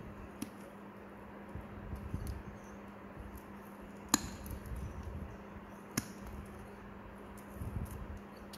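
Metal nail nippers snipping through a thick, fungus-crusted toenail: three sharp snips, the loudest about four seconds in, over a faint steady hum.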